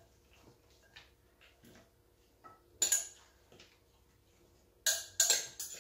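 Metal spoon clinking and scraping against a glass mixing bowl as vegetables are spooned out. Faint scrapes come first, then a sharp ringing clink about three seconds in and a quick run of clinks near the end.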